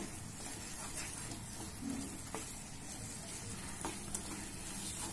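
Khoa (reduced milk solids) sizzling gently in a nonstick pan as it is stirred and scraped with a wooden spatula, with a few light taps of the spatula. It has begun to release its fat, the sign that it is roasted enough for the sugar to go in.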